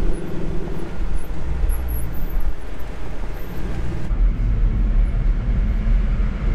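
Off-road recovery truck driving along a rough dirt track, its engine running under a steady low rumble of tyre and wind noise picked up by an outside-mounted camera. The sound changes abruptly about four seconds in, where a different camera takes over.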